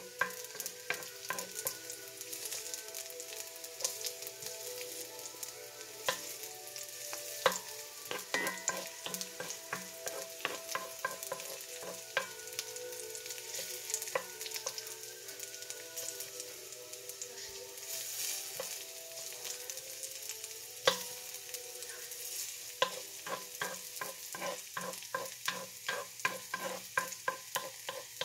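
Whole garlic cloves sizzling in hot oil in a cast-iron skillet while a wooden spoon stirs them, knocking and scraping against the pan. The knocks come quicker and closer together in the last five seconds.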